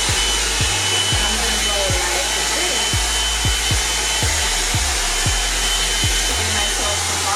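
FairyBrave hot-air blow dryer brush running, a steady rush of air with a constant high motor whine.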